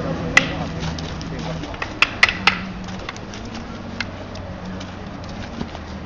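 Arnis practice sticks clacking in sharp strikes: one just after the start, then three in quick succession about two seconds in, and a faint one near four seconds.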